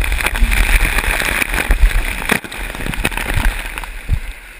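Rushing, splashing water on a water slide, with many small crackles and spatters and a heavy low rumble of wind on the microphone; it eases off near the end.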